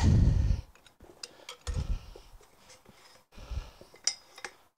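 Metal clinks and clicks of a socket bar with a length of pipe slipped over it for leverage, being worked on tight nuts on a tractor gearbox housing, with three dull low thuds, the loudest at the very start.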